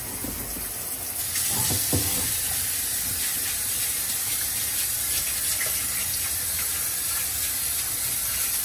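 Kitchen faucet running water over a raw turkey in a stainless steel sink: a steady rush of water that grows louder about a second in, with a couple of dull knocks near two seconds.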